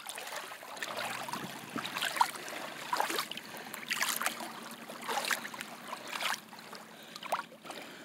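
Shallow water lapping and sloshing at the edge, coming in uneven surges.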